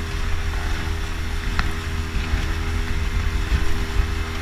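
Outboard motor of a rigid inflatable boat running steadily under way, a constant drone, with wind rumbling on the microphone and water rushing past the hull.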